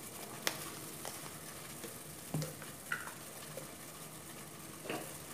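Stockpot of water and pork bones at a rolling boil, giving off a steady hiss of bubbling. A few light clicks sound over it.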